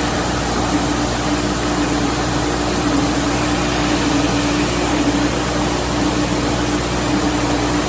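Bench grinder running steadily while a casting part is held to the wheel, grinding off casting dross; a constant hum under a loud, even grinding hiss.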